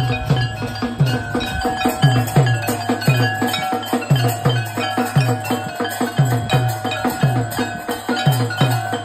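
Aarti music: a drum beating steadily about twice a second, each beat dropping in pitch, with bells ringing continuously over it.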